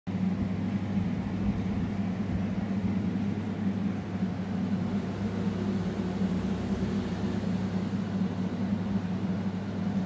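A steady low hum with a fuzzy noise underneath, unchanging throughout, with no distinct calls or knocks.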